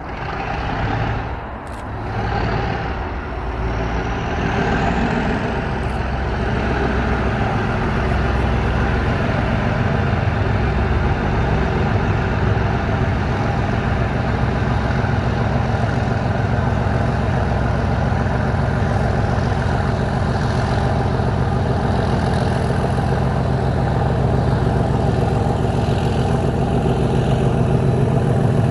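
Class 37/4 diesel locomotive's English Electric V12 engine working hard, building up over the first few seconds with a whine rising in pitch, then running loud and steady.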